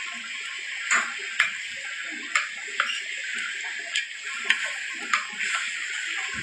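Food frying in oil on a giant flat pan, a steady sizzle, with sharp clicks of a metal ladle striking the pan about seven times at uneven intervals as the batter and greens are pressed and flipped.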